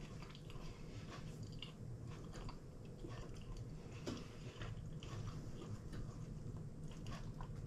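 A person quietly chewing a mouthful of a soft flour-tortilla fajita wrap, with small scattered mouth clicks.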